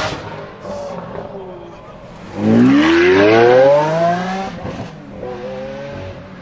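Lamborghini Aventador S's 6.5-litre V12 accelerating hard: about two seconds in the engine note jumps up loud and climbs steeply in pitch for about two seconds. It then breaks off with a couple of sharp pops and carries on at a lower, steadier note, as at an upshift.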